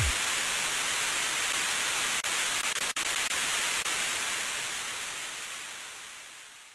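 Steady hiss of static noise replacing the music, with a few brief dropouts, then fading out over the last couple of seconds.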